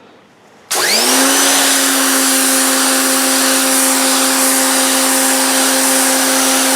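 Powerplay Spyder 2000 PSI electric pressure washer cutting in under the trigger about a second in, its motor and pump whining up in pitch briefly and then running steadily with the loud hiss of the high-pressure water jet on the concrete driveway.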